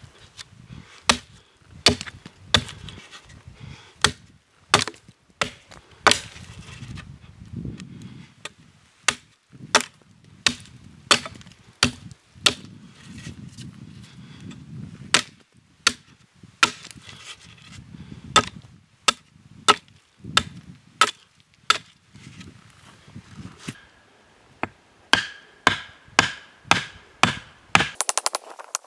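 Wood being chopped with a blade: a long run of sharp strikes, about one or two a second, the last few near the end ringing with a slight tone.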